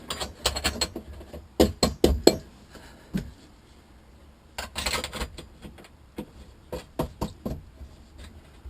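Footrest being fitted into a motorized kayak hull: a run of sharp knocks and clinks from the parts being handled and set in place, loudest about two seconds in, with another cluster around five seconds and lighter taps after.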